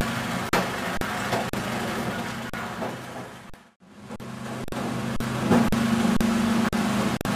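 Crop chopper trolley for pepper plants running: a steady machine hum over a noisy rush, with small knocks and clicks throughout. It fades out briefly in the middle and comes back.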